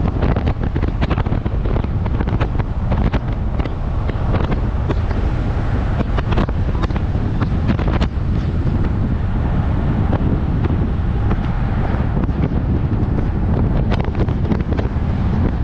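Wind buffeting the microphone of a camera in a moving car, over steady road rumble, with irregular gusty surges.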